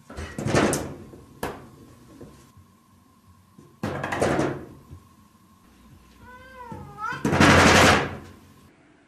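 A cat meows once with a wavering pitch, between three loud, harsh noisy outbursts, the loudest coming right after the meow. A sharp knock sounds about a second and a half in.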